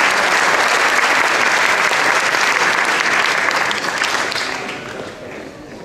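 Audience applauding, a dense patter of many hands clapping that thins and fades away over the last two seconds.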